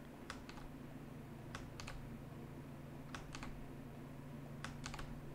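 Computer mouse clicking, mostly in quick pairs, about five times, over a faint steady low hum.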